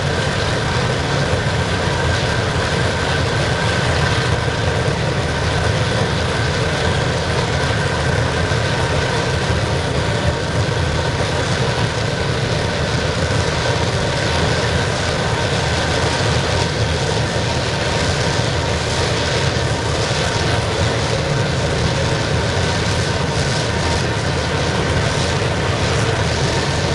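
Waste-oil burner firing a scrapping furnace with a steady roar, a couple of faint high tones held steady over it.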